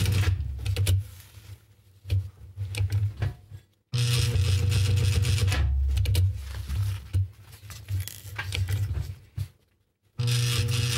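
Juki DDL-555 industrial straight-stitch sewing machine stitching through thick webbing straps in stops and starts, with a steady hum and rapid needle chatter while it runs. It runs for about a second at the start, gives a few short bursts, runs longer in the middle, and starts again near the end, with quiet pauses while the strap is repositioned.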